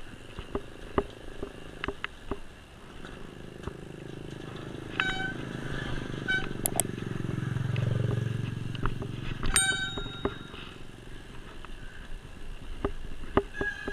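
A motorcycle approaches and passes close by, its engine hum building to a peak about eight seconds in and then fading, over the scattered clicks and rattles of a mountain bike ridden over a footbridge and a rough lane. A few short high-pitched tones sound between about five and ten seconds in.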